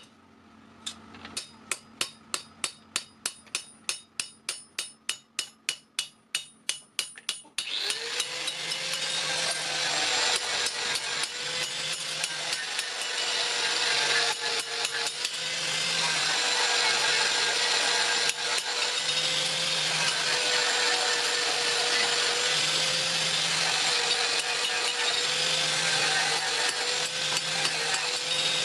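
Hand hammer striking clutch-plate steel about three times a second, each blow ringing, for the first seven seconds or so. Then a power grinder starts and runs steadily against the metal with a wavering whine.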